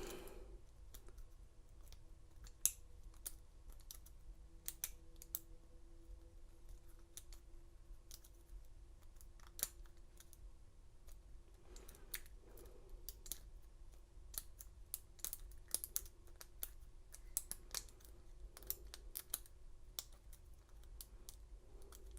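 Lock pick and tension wrench working inside a Master Lock 187 padlock during single pin picking: small irregular clicks and scrapes as the pins are probed and set.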